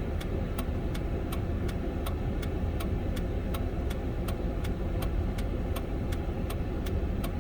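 Steady low rumble of a pickup truck's cabin, engine and road noise, with an even ticking about three times a second running through it.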